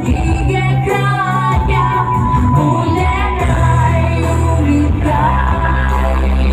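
A woman singing a pop song over a backing track with sustained bass notes.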